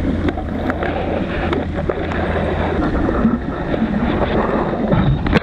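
River water rushing, a loud steady noise, with wind buffeting the microphone.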